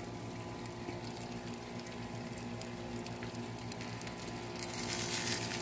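Chicken on a barbecue grill sizzling softly over a steady low hum, the sizzle growing louder near the end.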